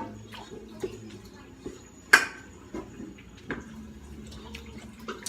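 Dishes and cutlery clinking and knocking at a meal: scattered sharp clinks, with one louder clink about two seconds in.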